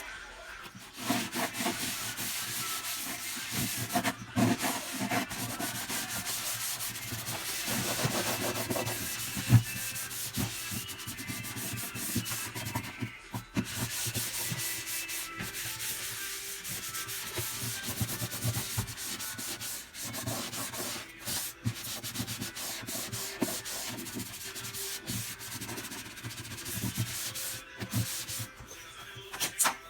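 Hand scrubbing of an Electrolux refrigerator's surfaces during cleaning: continuous rubbing strokes with a few short pauses and an occasional light knock.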